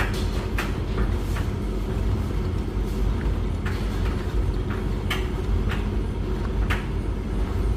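Washing machine and tumble dryer running together: a steady low drum rumble with irregular light clicks of laundry and fastenings knocking inside a turning drum. The washing machine is on a 90-degree cottons wash.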